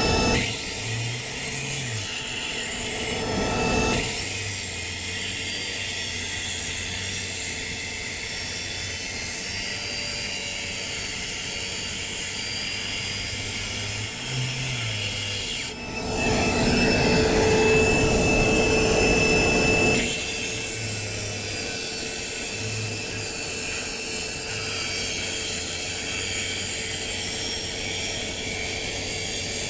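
Circular saw fitted with a DeWalt blade cutting through concrete, running steadily the whole time, with a louder, harsher stretch of several seconds just past the middle as the blade cuts in harder.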